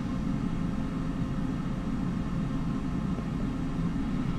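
Steady low hum and rumble with no distinct events.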